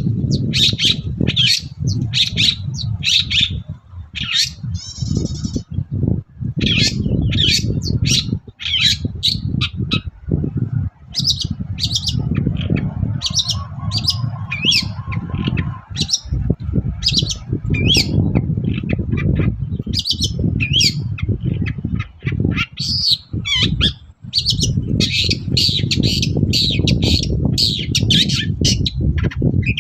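Long-tailed shrike (cendet) singing in rapid, harsh chattering phrases of short high notes, with brief pauses between runs. A steady low rumble lies underneath.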